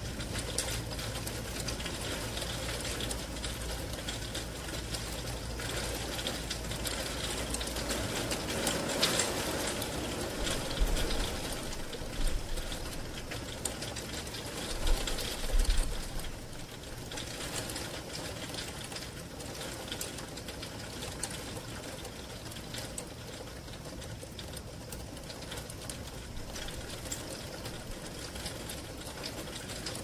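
Heavy rain hitting a bedroom window, heard from inside, a dense stream of small drop ticks. A low rumble sits under the first eight seconds, and a few louder knocks come around the middle.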